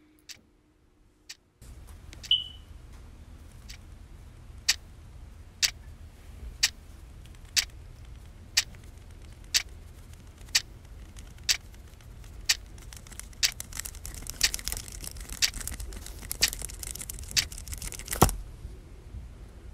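Retractable pen being clicked, sharp clicks at an even pace of about one a second, coming faster in the last few seconds and ending in one louder click. A low steady hum runs underneath.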